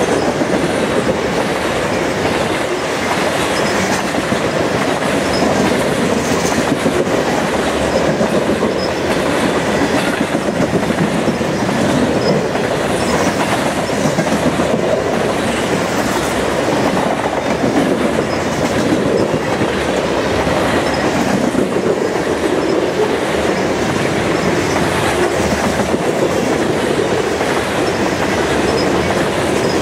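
Covered hopper cars of a freight train rolling past close by: a steady rumble of steel wheels on rail with a repeating clickety-clack of wheels over the rail.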